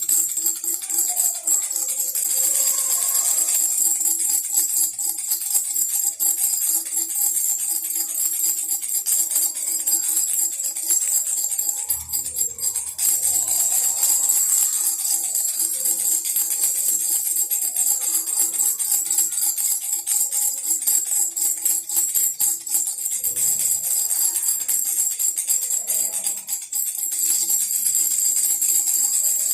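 Baby rattle shaken continuously, a fast, steady jingling shimmer, over a musical backing with a few held tones. Short low drum thuds come in twice, about twelve and about twenty-three seconds in.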